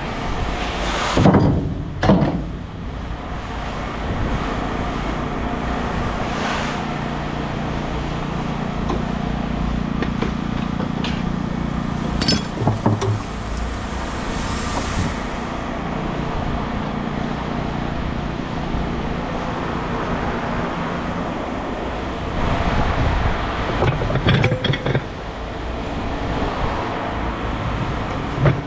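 An engine running steadily, with a few loud clanks and thumps of scrap being handled, about a second in, around two seconds, around twelve seconds and again around twenty-four seconds.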